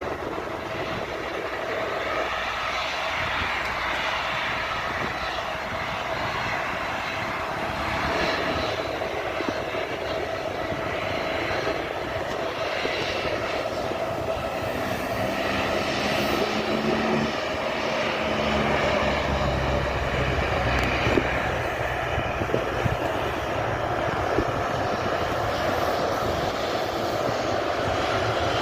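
Airliner engine noise: a steady rushing hiss with a constant mid-pitched tone held throughout, growing slightly louder toward the end.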